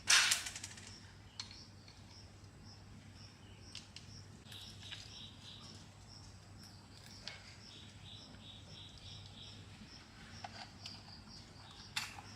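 A run of small high chirps, two or three a second, in the background over a low steady hum, from a small bird. A loud clatter right at the start, and a sharp click near the end.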